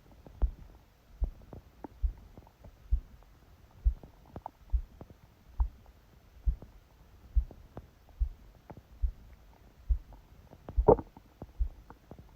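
A sleeping person's heartbeat, thumping steadily a little more than once a second, picked up loudly through a phone held against the belly by a book. Near the end a short stomach gurgle rises over one beat.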